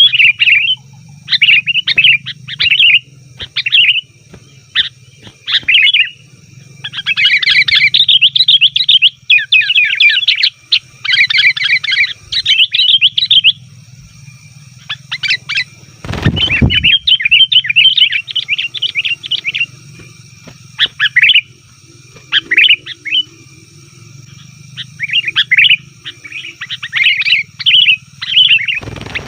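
Sooty-headed bulbuls (kutilang) chattering in loud, busy bursts of rapid chirps with short pauses between them, the noisy calling used to lure bulbuls. A single loud thud comes about 16 seconds in.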